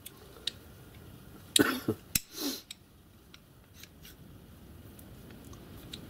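Small steel and brass model-locomotive parts (a crosshead on its slide bars) being handled by hand: a few sharp metallic clicks and a short rub about a second and a half in, then faint ticks.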